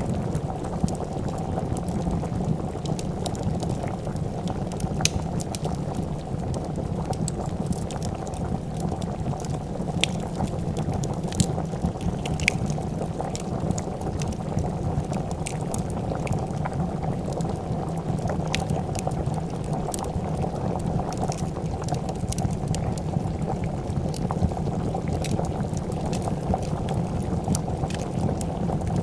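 A pot of soup bubbling at a steady boil, with scattered sharp crackles and pops from a wood fire throughout.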